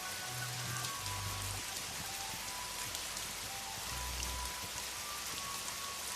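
Steady rain falling. Soft music runs underneath: a slow line of single held high notes and a few deep bass notes.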